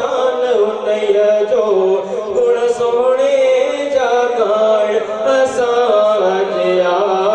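A man singing a Sufi devotional song into a microphone, in long held notes that bend and slide in pitch.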